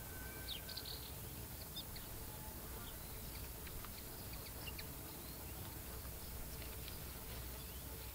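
Faint outdoor ambience: many short, scattered high chirps over a low steady rumble.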